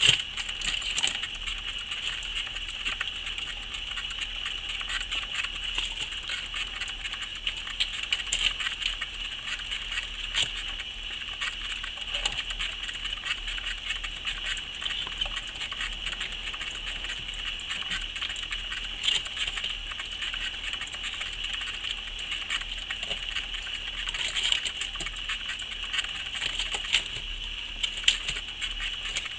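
Plastic exercise wheel spinning under a running Highland streaked tenrec: a continuous whir with a dense, quick patter of small feet and light rattling.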